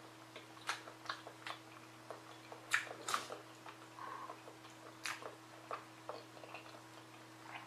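Close-miked mouth chewing soft black bean sauce rice (jajangbap): scattered wet clicks and smacks of the lips and tongue, over a faint steady hum.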